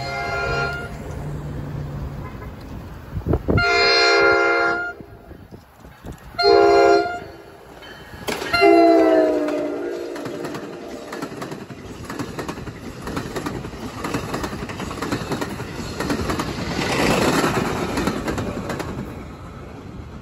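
Horn on the leading NJ Transit Multilevel cab car sounding four blasts, the grade-crossing signal, the last one dropping in pitch as the train reaches the crossing. Then the double-deck coaches roll past with steady wheel-on-rail noise that grows louder for a few seconds near the end.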